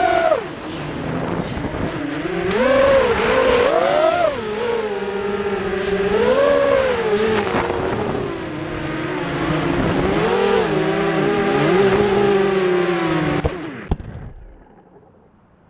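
Brushless motors and propellers of a small FPV racing quadcopter heard through its onboard camera: a whine that rises and falls with each burst of throttle. Near the end there is a short knock and the motors cut off as the quad comes down on the deck.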